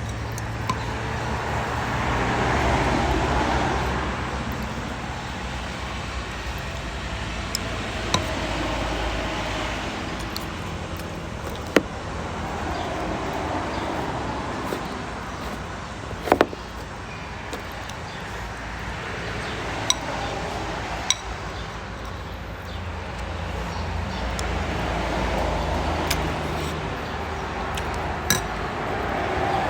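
Road traffic passing: a steady low rumble with vehicles swelling up and fading away several times. Occasional sharp clinks of glass or crockery come through it, about half a dozen in all.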